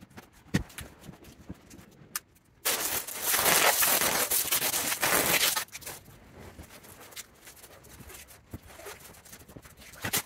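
Moving blankets rustling and plastic wrap crackling as a leather armchair is bundled up, with a few sharp knocks; about three seconds in, a loud crackling stretch of wrap or tape being pulled lasts about three seconds, then fainter rustling.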